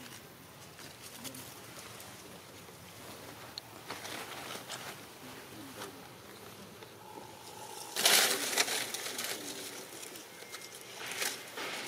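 Forest background with insects buzzing and soft scattered rustles and clicks. A short, loud rustle about two-thirds of the way through is the loudest sound.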